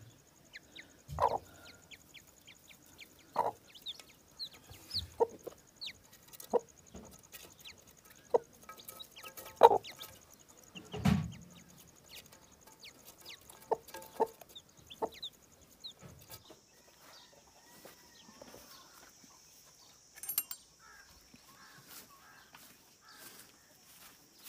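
A broody hen clucking in low calls every second or two while newly hatched chicks peep in many short, high, falling notes; the calls stop about two-thirds of the way through.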